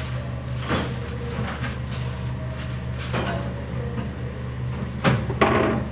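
Steady low machine hum of a commercial kitchen, with a few short clatters and knocks of work at a stainless-steel counter, the loudest just after five seconds in.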